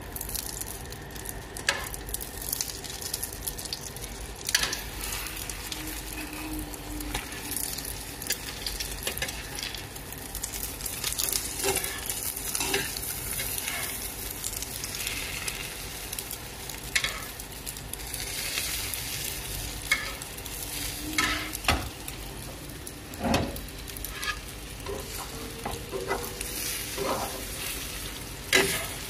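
Egg omelette with cheese slices sizzling in oil in a nonstick frying pan. A slotted spatula scrapes and taps against the pan now and then as the omelette is folded over.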